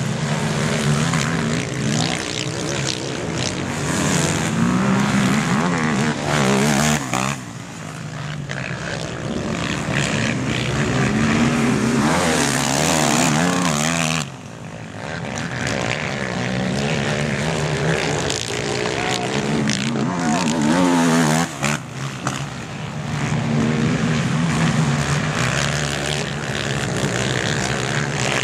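Several racing quad bikes' engines revving hard on a motocross track, the pitch rising and falling as the riders accelerate, shift and pass. The loudness dips briefly twice.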